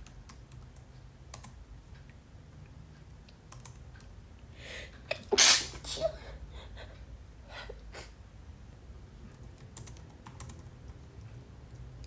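Scattered clicks of fingers typing on a computer keyboard, broken about five seconds in by a quick breath in and one loud sneeze from someone with a head cold.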